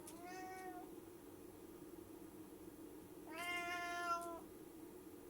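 Domestic cat meowing twice: a short meow at the start, then a longer, louder one about three seconds later. A steady low hum runs underneath.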